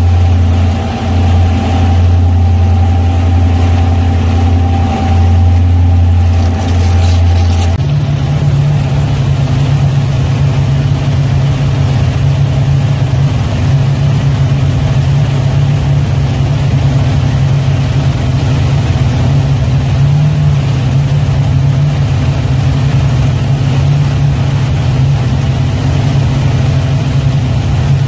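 The Carver cruiser's twin gasoline inboard engines running under way, a loud, steady drone. Their note steps up in pitch about eight seconds in and then holds.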